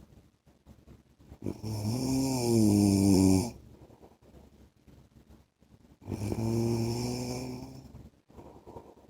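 A man snoring in his sleep: two long snores of about two seconds each, the first about one and a half seconds in and a slightly quieter second one about six seconds in.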